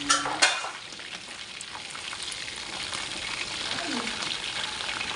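Chicken wings frying in a pan with a steady sizzle, and two or three sharp clicks in the first half second.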